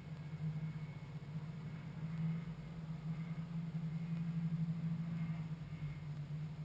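Ultralight aircraft engine idling on the ground with the propeller turning, a steady low drone heard from the cockpit that swells slightly a couple of times.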